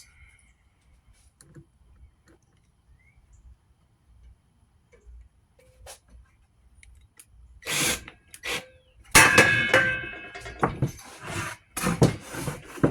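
A few quiet handling clicks, then a loud clatter about nine seconds in, with metal ringing and fading, followed by more knocks. Parts or tools slip off a cluttered workbench and crash down.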